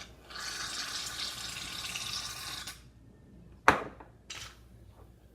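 Aerosol can of shaving foam hissing as foam is sprayed out for about two and a half seconds, then a sharp knock and a brief second spurt of hiss.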